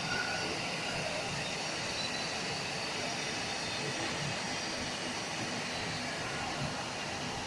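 Steady machine noise of a running production line: an even hum and hiss with faint high tones, no strokes or pauses.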